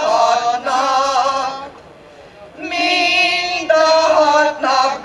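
Women's folk-song choir singing a Hungarian folk song unaccompanied, in long held phrases, breaking off for a breath about two seconds in.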